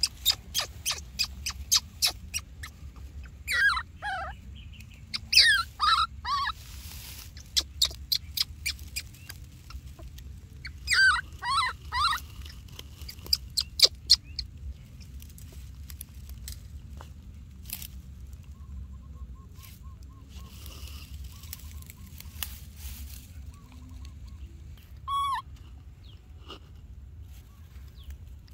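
Baby macaque crying in short, high squeals that fall in pitch, in several bursts through the first half and once more near the end. Rapid clicks and crackles run alongside the cries in the first half, over a steady low rumble.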